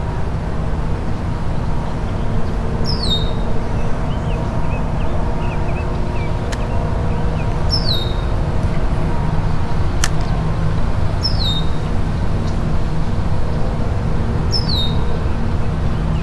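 Steady rumble of passing road traffic, with a bird repeating a short, high, falling call four times, every three to four seconds. Two sharp clicks partway through.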